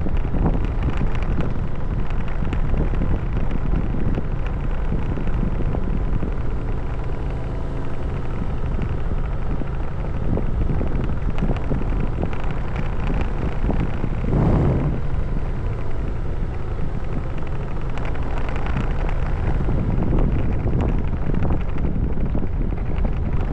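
Wind buffeting the microphone on a moving motor scooter, with the scooter's engine running steadily underneath; a stronger gust swells about two-thirds of the way through.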